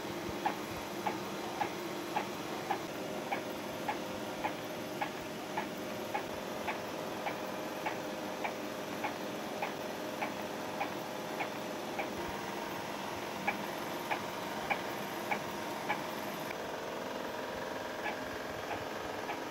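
RIECAT DTF inkjet printer printing: the printhead carriage shuttles back and forth with a sharp click a little under twice a second over a steady motor hum. The clicks pause briefly about two-thirds through, and near the end the hum changes note.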